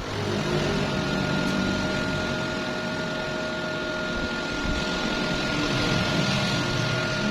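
Electric arc welding on steel plate: a steady crackling hiss of the arc that starts suddenly and holds for about seven seconds, with a faint steady hum underneath.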